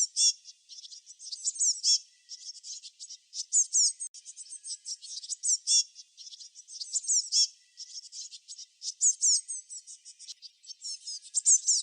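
Small songbirds chirping: rapid, high-pitched chirps and quick falling notes in clusters with short gaps.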